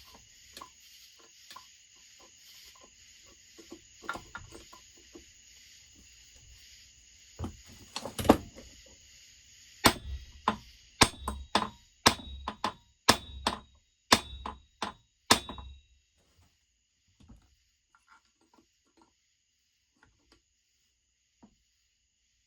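Sharp metal-on-metal hammer blows, about a dozen at roughly two a second, struck to shock the flywheel loose from the crankshaft of a Husqvarna 1100CD chainsaw. A few lighter knocks come first.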